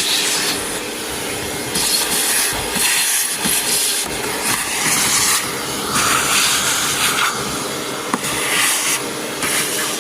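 Vacuum cleaner running with a steady motor hum, its suction hiss swelling and dropping every second or so as the nozzle works along a sunroof shade track, picking up debris.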